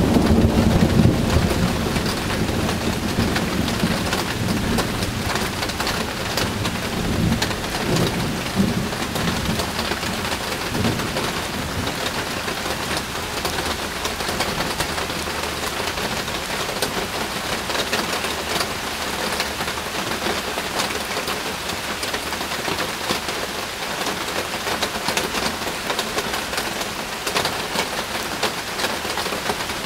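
Steady heavy rain falling, with a low rumble of thunder dying away over the first few seconds.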